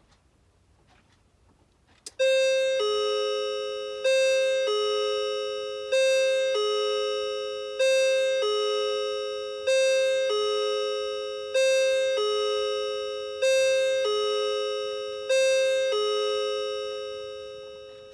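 CITIZEN hour-strike table clock striking the hour with a two-note ding-dong, a higher tone then a lower one, eight times in even succession, each pair ringing and fading before the next. Faint ticking is heard before the first strike, about two seconds in.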